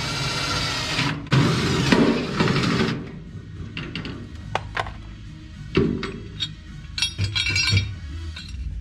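Cordless drill running at the jet pump opening of an aluminium boat hull, twice, stopping about three seconds in; then a string of light metallic clinks and taps as metal parts are handled.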